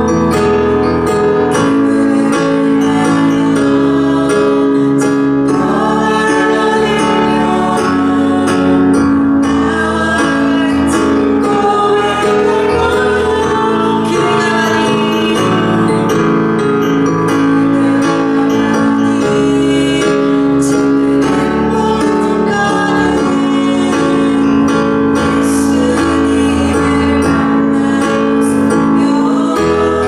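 Congregational worship song: singing over instrumental accompaniment with guitar, the music running steadily and without a break.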